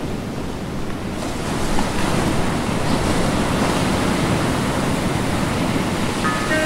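Ocean surf: a steady wash of breaking waves that swells a little after about a second. Music notes come in just before the end.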